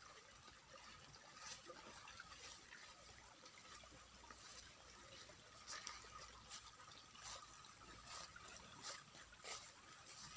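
Faint trickle of water from the flooded rice paddies, with soft scattered clicks of footsteps in sandals on the grassy bund, about one or two a second in the second half.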